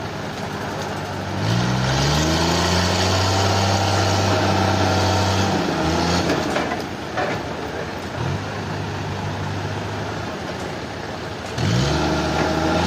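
Sawmill engine running, revving up about a second and a half in and holding high with a high hiss for about four seconds, then dropping back; it revs up again near the end.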